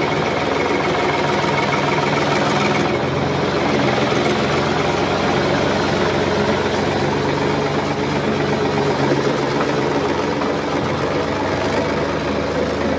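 Tractor engine running steadily under load, a deep even drone with a faint knocking rhythm; the sound shifts slightly about three seconds in.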